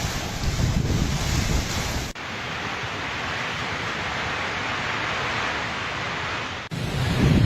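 Cyclone-force wind blowing hard and buffeting the microphone with a heavy rumble under a rushing hiss. About two seconds in it cuts abruptly to a steadier rushing hiss with little rumble, and near the end it cuts back to gusty buffeting.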